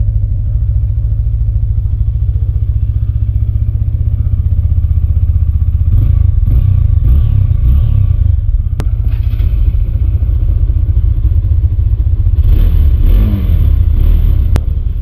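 Single-cylinder sport motorcycle engine running at idle just after a cold start, warming up, with short revs about six seconds in and again near thirteen seconds.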